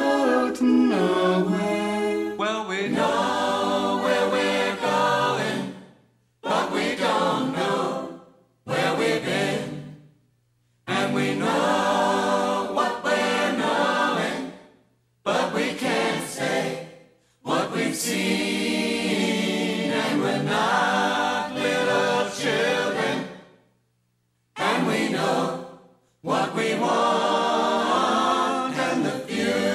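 Background music of choral singing, breaking off several times into brief silences.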